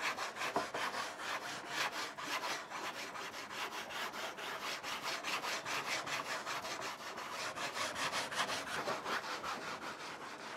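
A wet paper-filled pad scrubbing back and forth across a canvas in quick, even strokes, rubbing a thinned acrylic raw umber wash into the surface as the toned underpainting.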